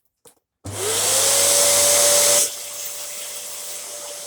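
Dyson DC07 upright vacuum cleaner switched on: the motor spins up to a steady whine over a loud rush of air. About two seconds later the rush of air drops sharply while the motor keeps running at the same pitch.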